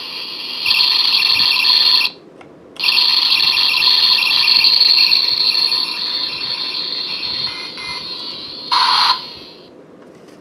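DX Zetsumeriser toy belt buckle playing electronic sound effects through its built-in speaker. The sound cuts out for a moment about two seconds in, starts again, tapers off, and ends with a short loud burst near the end.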